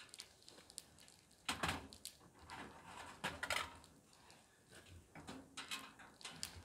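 A metal pan being put into a small camp oven on a wood stove: faint, scattered clanks and scrapes of metal on metal, the loudest about a second and a half in and again a little after three seconds.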